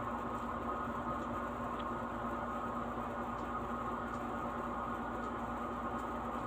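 Steady background hum with a constant low tone, unchanging throughout; no other sound stands out.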